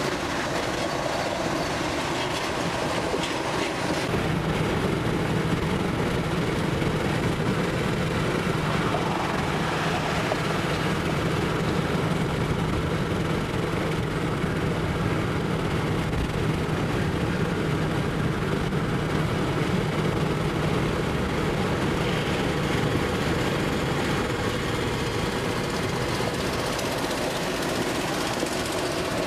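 Steady highway road noise heard from inside a moving car running beside a multi-axle heavy-haul tractor-trailer: tyres on pavement and the rig's diesel engines. A low steady engine drone comes up out of the noise a few seconds in and fades past the middle.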